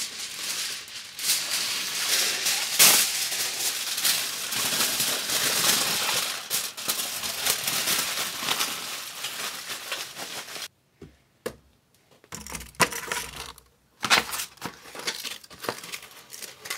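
Aluminium foil crinkling and crumpling as it is torn off the roll and scrunched into a hat around the head, in a dense run of crackles. It breaks off twice past the middle for a second or so.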